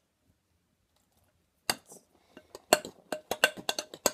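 A spoon clinking and knocking against a large mixing bowl as slime is stirred: a quick run of sharp clinks that starts a little under two seconds in.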